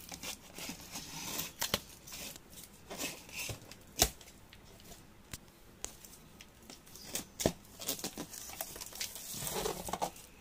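Utility knife slicing packing tape and cardboard on a TV's shipping box, with scraping and rustling in short runs and scattered sharp clicks and knocks from handling the box, the loudest about four seconds in.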